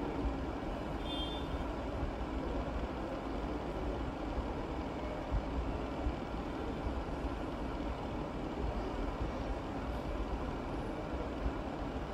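Steady low rumbling background noise of a working kitchen, with a few faint knocks of a chef's knife slicing vegetables on a plastic cutting board.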